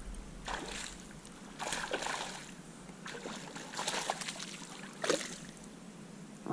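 Hooked smallmouth bass splashing and thrashing at the water's surface in several short bursts as it is reeled in.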